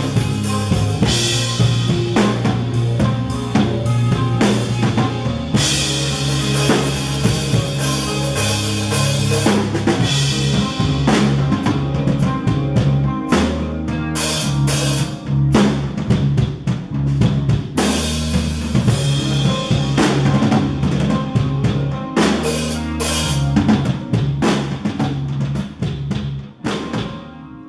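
Live instrumental rock band playing: distorted electric guitars holding sustained low notes over a drum kit with steady kick, snare and cymbal hits. The music fades out near the end.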